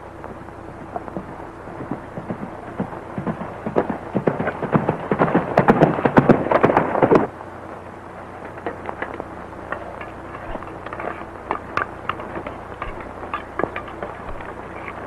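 Horses galloping: rapid hoofbeats that grow louder over the first few seconds and stop abruptly about seven seconds in, followed by fainter scattered knocks over the steady hiss of an old film soundtrack.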